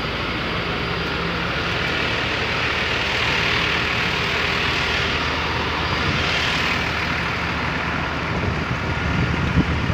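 Steady engine drone with a hiss that swells and fades through the middle, and a few short knocks near the end.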